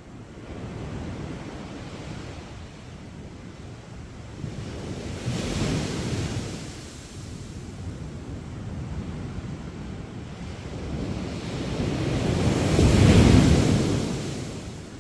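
Sea waves surging onto the shore, with one swell about five seconds in and a bigger, louder one a little before the end.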